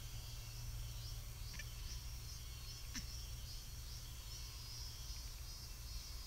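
Steady high chirring of insects in the woodland, over a constant low hum. A faint tick comes about one and a half seconds in and a single sharp click about three seconds in.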